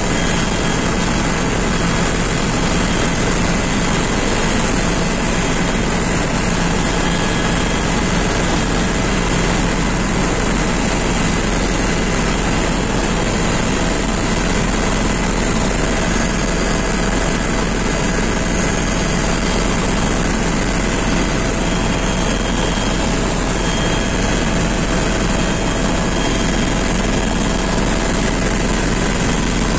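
Helicopter engine and rotor noise heard from inside the cabin in level flight: a loud, even drone with a few steady whining tones, unchanging throughout.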